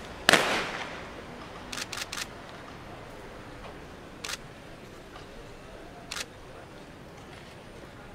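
A single loud, sharp crash about a third of a second in, the honour guard's rifles and boots striking together in a drill movement on command. Then scattered camera shutter clicks: a quick run of three about two seconds in, then single clicks near four and six seconds.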